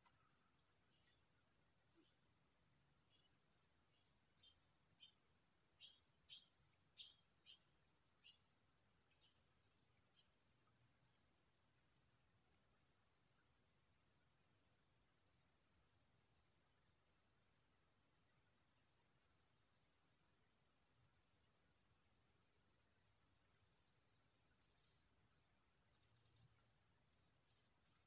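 Insects chirring in a steady, high-pitched drone that never breaks.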